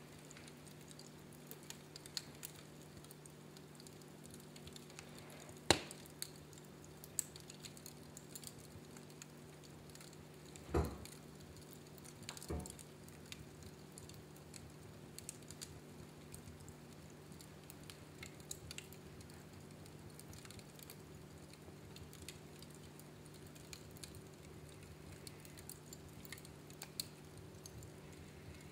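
Wood fire crackling faintly, with scattered small clicks and a few louder pops, over a steady low hum.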